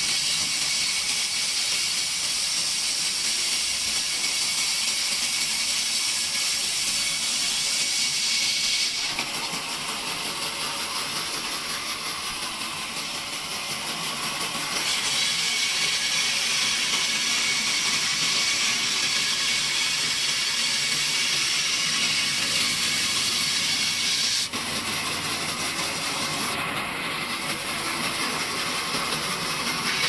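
Band saw cutting through a corrugated cellulose evaporative-cooler pad, a steady high hiss. The sound shifts abruptly twice, about nine and twenty-four seconds in.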